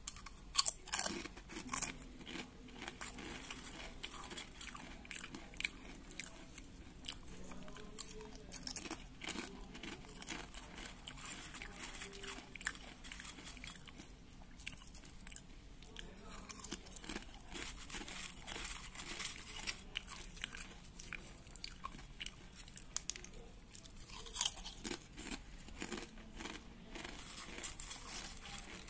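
A person biting and chewing crisp extruded soya chips close to the microphone: irregular crunches throughout, with the sharpest bites near the start and again near the end.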